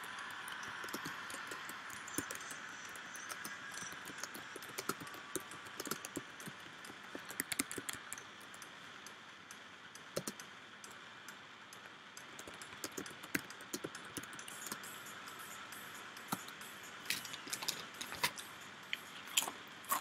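Computer keyboard being typed on: irregular, uneven key clicks over a faint steady background noise.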